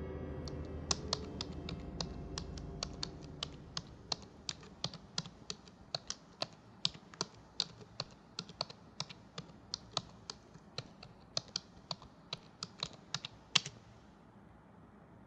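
Typing on a laptop keyboard: irregular key clicks, about two or three a second, that stop a little before the end, with one louder keystroke last.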